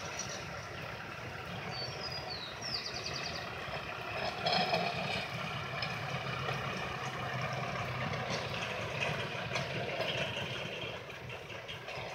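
Ford F100 hi-rail pickup's engine running as it rolls along the rails past, loudest about four to five seconds in and fading near the end.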